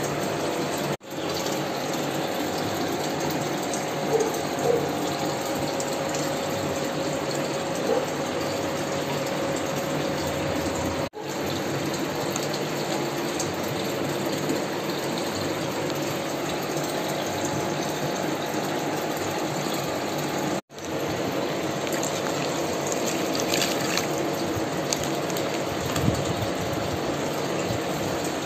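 Steady rushing noise like running water. It drops out abruptly three times and resumes, with a few faint knocks.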